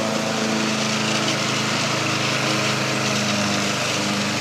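Small engine running at a steady speed.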